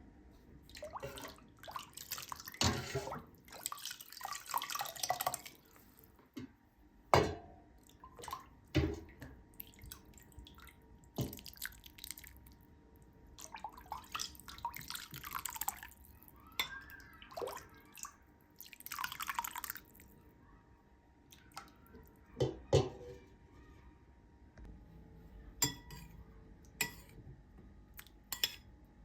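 Kitchen work with water: bursts of water splashing and pouring, with scattered knocks and clinks of dishes and utensils.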